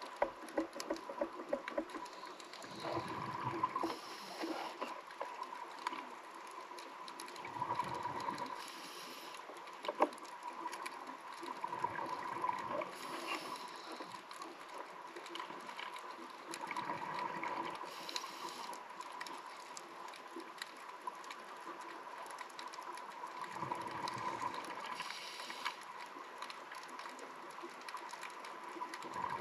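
Scuba diver breathing through a regulator underwater: bursts of exhaled bubbles rumble out about every five seconds, with quieter hiss between breaths.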